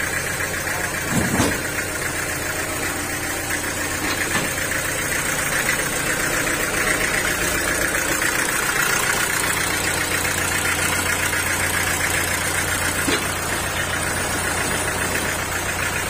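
Homemade band sawmill's engine running steadily without cutting, a constant low hum with a fast, even beat. A short knock sounds about a second in and another near the end.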